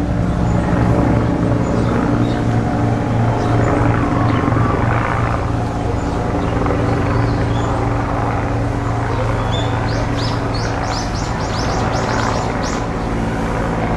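A steady low mechanical hum, like a running motor, with a quick run of short high chirps about ten seconds in.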